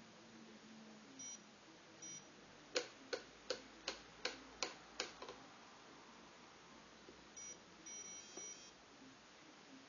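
Fidelity Challenger thermal printer printing, working after repair: seven sharp clicks about three a second as it advances the paper line by line. Short high electronic beeps from the Sensory Chess Challenger 12B chess computer come twice before the clicks and again in a quick cluster near the end.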